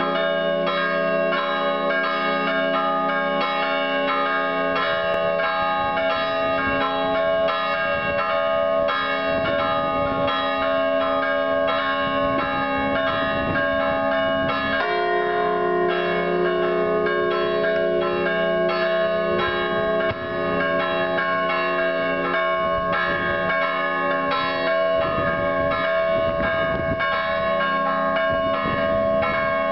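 Church bells ringing a continuous festive peal, many bells struck in quick succession with their tones overlapping. About halfway through, the pattern of bells changes.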